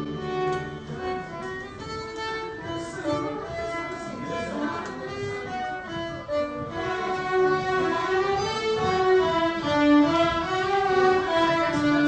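Mixed instrument folk ensemble playing a traditional Scottish tune, a melody of held notes carried by several instruments together.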